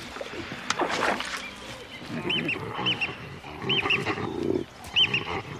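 Baboons screaming and calling in an aggressive squabble over a kill. The calls come as short high cries, often in quick pairs, repeated several times, with a harsher, lower call in the middle.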